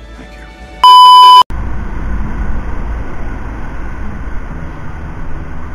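A loud, steady electronic beep about a second in, lasting just over half a second. It is followed by the steady engine and wind noise of a scooter riding in traffic.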